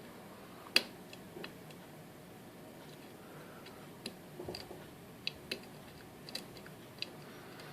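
Irregular, sharp little clicks of a lock pick and tension wrench working the pin stack of an Assa Guideline lock cylinder, about eight in all, with the loudest about a second in.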